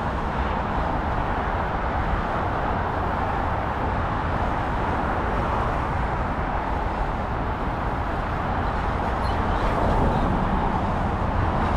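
Steady road noise from car traffic on the street alongside, a little louder near the end as a car goes by.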